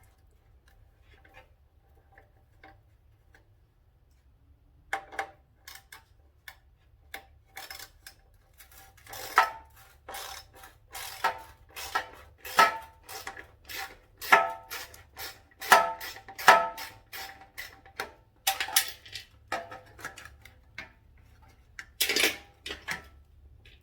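Irregular metallic clinks and clanks of tools and parts being handled during motorcycle disassembly, starting about five seconds in, with some strikes ringing briefly.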